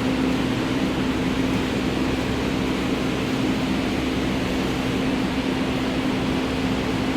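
Ford engine idling steadily: an even mechanical drone with a strong, steady hum. It is the engine being checked for a knocking noise at idle, though no separate knocks stand out.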